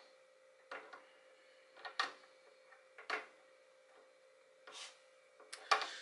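Short metal clicks and clunks from the hardware of a DW 5000 double bass drum pedal being handled and fitted together by hand, about five of them roughly a second apart, the loudest near the end, over a faint steady hum.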